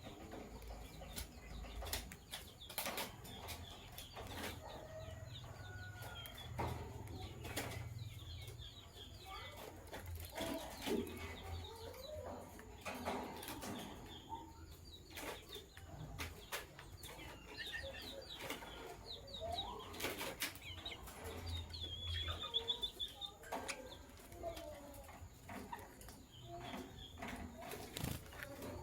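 Lovebirds chirping in short, high chirps with some lower calls, among frequent sharp clicks and knocks.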